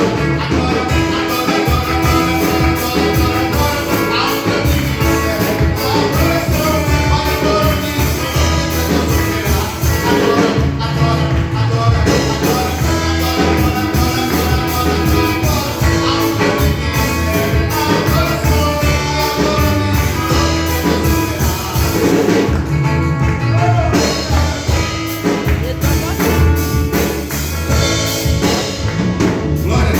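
A church worship band playing a gospel song, with singing, guitar and drums.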